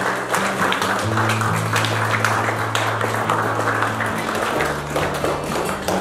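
Music with held bass notes, and a room of guests clapping and applauding the entrance of a bride and groom.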